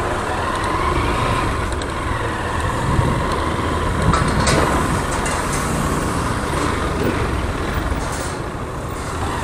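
Honda XRE 190 motorcycle's single-cylinder engine running at low speed while riding, heard from the bike's onboard camera, with a steady rush of wind and road noise.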